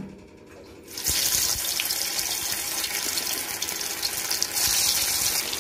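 Mutton keema vadas going into hot oil, which breaks into a loud, steady sizzle of deep-frying about a second in.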